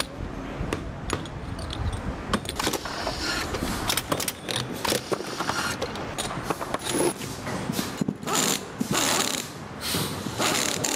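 Metal ball valve parts clicking and clinking as they are handled and fitted together in assembly. Several short hissing bursts come near the end.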